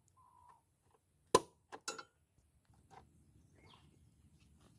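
One sharp metallic click followed by two lighter clicks: a key turning in a motorcycle's seat lock to release the seat.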